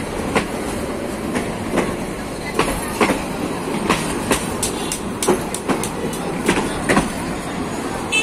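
Passenger train coaches rolling past at close range: a steady rumble with a regular clickety-clack of wheels striking the rail joints, about two clicks a second.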